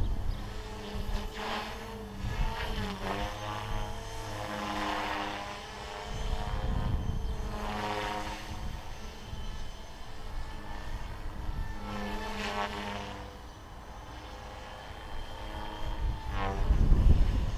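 MSH Mini Protos electric RC helicopter flying circuits overhead. The whine of its motor and rotor swells and bends in pitch with each of several passes. A low rumble rises near the end.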